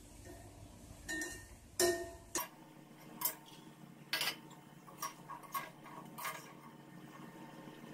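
Slotted metal ladle clinking and scraping against an iron kadai while turning seedai balls frying in oil: about nine irregular sharp taps and knocks, bunched in the first two-thirds.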